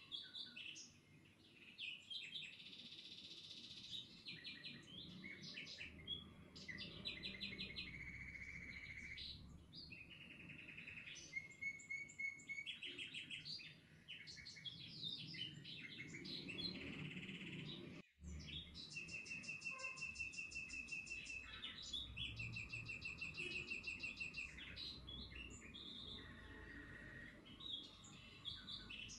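Several songbirds chirping and singing: quick trills of rapidly repeated notes and short chirps, one after another, over a faint low background hum. The sound drops out for an instant about halfway through.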